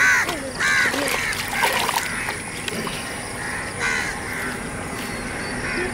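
Crows cawing: a handful of short, harsh caws spaced irregularly a second or more apart.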